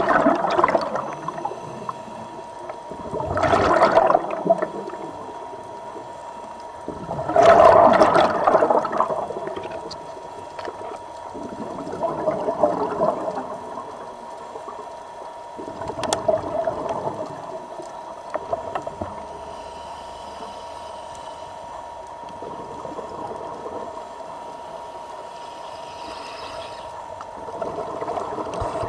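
Underwater recording: a diver's exhaled air bubbling up in swelling bursts about every four seconds, over a steady hum.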